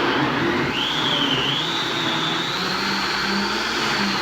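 Blender running, pureeing vegetables and water into a soup; its motor whine rises in pitch about a second in, then holds steady.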